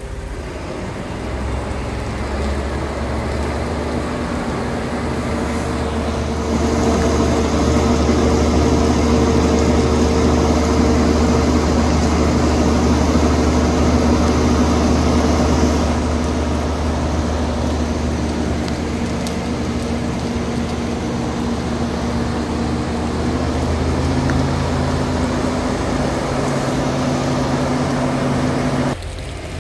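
Large crawler crane's diesel engine running steadily, growing louder about six seconds in with a high whine over it that fades about halfway through, then dropping off suddenly near the end.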